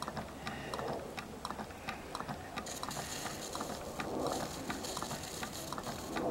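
Homemade Stirling hot-air engine running, its flywheel and crank linkage making a quick, steady clicking.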